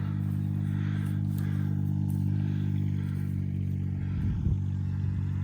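A motor vehicle's engine running steadily at an even, unchanging pitch.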